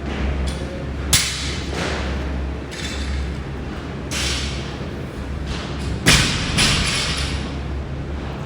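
Gym equipment thudding on the floor twice, about five seconds apart, the second thud the louder, over a steady low background hum.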